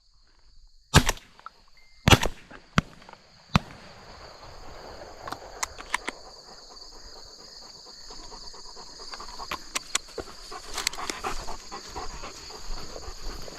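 Two shotgun shots about a second apart, followed by a few lighter clicks, over a steady high drone of insects.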